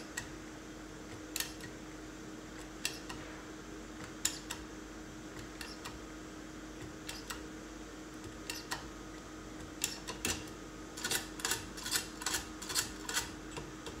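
Small metallic clicks from a Prodecoder Automatic decoder working the plates of a SAM 3x3 safe lock as it is turned under tension and released. The clicks come singly every second or so at first, then in a quicker run near the end. Each click is the sign that the decoder is working.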